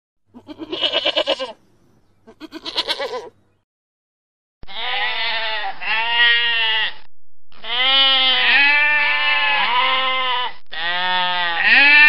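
Markhor (wild goat) bleating: two short, quavering bleats in the first few seconds, then after a brief pause a run of longer, wavering bleats that rise and fall in pitch.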